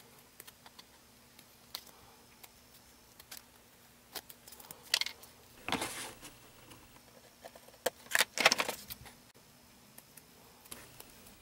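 Scissors cutting through chipboard: several short, separate snips through the middle of the stretch, with faint handling of the board between them.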